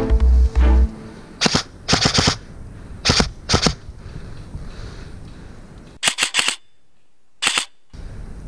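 Airsoft electric rifle (Krytac MK2 CRB with a GATE Titan electronic trigger set to binary mode) firing short groups of shots: sharp clicks about a second and a half in, two close together around two seconds, two more around three seconds, then a quick cluster near the end. Brief background music fades out in the first second.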